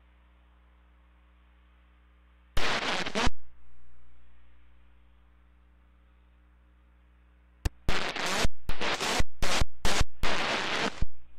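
Harsh crackling static from an air traffic control radio receiver: one burst of nearly a second about two and a half seconds in, then a choppy run of short bursts near the end, over a faint steady radio hiss.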